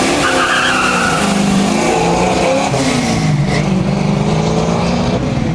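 Chevrolet Nova muscle car revving hard in a burnout, its engine pitch rising and falling several times, with the rear tyres squealing in the first second. Partway through, the sound thins as the car pulls away.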